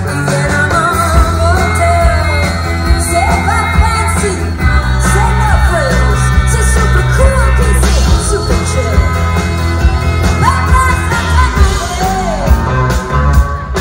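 A rock band plays a song with a singer, over a steady heavy bass and drums.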